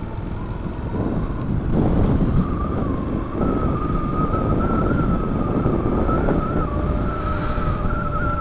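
Honda motorcycle under way on a winding mountain road, heard from the rider's onboard microphone: a steady engine and wind rumble with a wavering high whine running over it, which steps up a little in pitch about a second and a half in. A brief hiss comes near the end.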